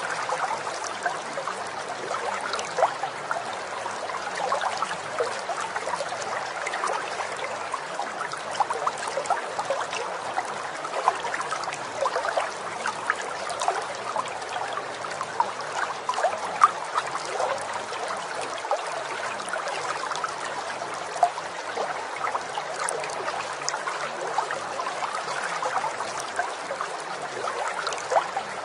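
Running water of a small stream, a steady babbling trickle dotted with many tiny splashes.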